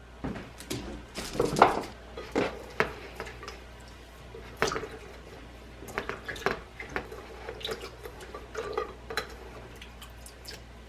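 Dishes and cutlery clinking and clattering: a string of irregular sharp knocks and clinks, a few with a short ring.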